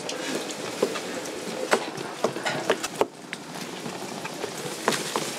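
Busy market-stall background noise with a series of sharp, irregular knocks and clacks, like utensils and work at the stall.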